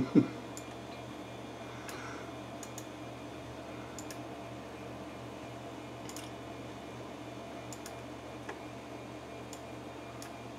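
Steady hum of a running desktop computer, with a dozen or so faint mouse-button clicks scattered through, some in quick pairs.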